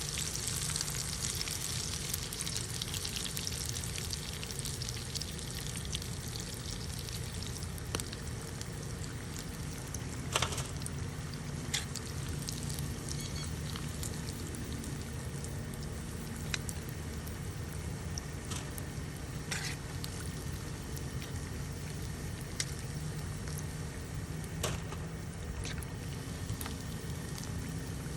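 Fish deep-frying in hot oil, a steady sizzle that is brightest in the first few seconds, over a steady low rumble. Scattered sharp clicks and taps of a utensil against the pan.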